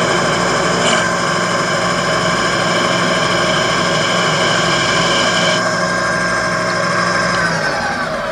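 Small bench lathe's motor running with a steady whine while the cutter takes a light pass on the tenon. Near the end the lathe is switched off and spins down, its pitch falling.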